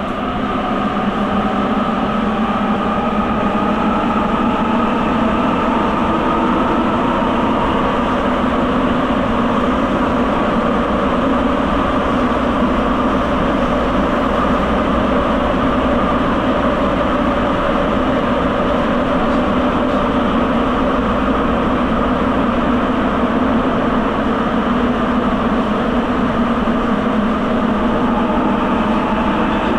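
Rubber-tyred Sapporo subway train running through the tunnel, heard from inside the car: a steady running roar with a faint motor hum that rises a little in pitch over the first several seconds, then holds level.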